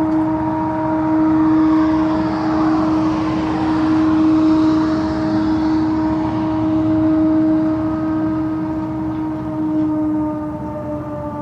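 The unexplained 'strange sky noise': a loud, steady, horn-like drone of several held tones, which sags slightly in pitch near the end. A rushing noise swells beneath it a few seconds in.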